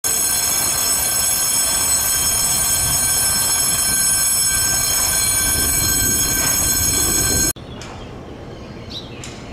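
Loud continuous electric bell ringing steadily, then cutting off suddenly about seven and a half seconds in, leaving quiet background with a few faint high chirps.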